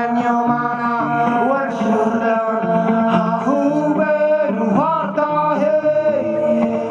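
A man singing into a microphone over electric guitar accompaniment, his held notes bending and wavering in pitch.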